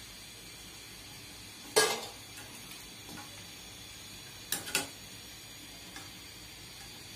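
A metal utensil clanks against a steel wok and bowl as fried flower pitha are lifted out of the hot oil: one sharp clank about two seconds in, then a quick double clink near five seconds. Under it runs a faint steady sizzle of the frying oil.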